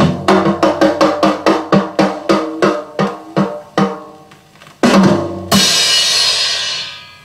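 Drum kit recording from an audio check record, played back over loudspeakers. A run of drum strokes slows and fades away, then comes a hard hit about five seconds in and a cymbal crash that rings out and dies away.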